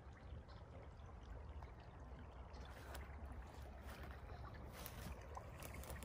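Faint, steady rush of flowing creek water, with a few light clicks scattered through.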